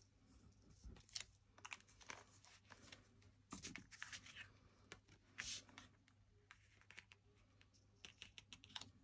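Faint sounds of paper and card being handled on a craft desk: light taps, scratches and brief rustles at irregular intervals as pieces are moved and pressed down.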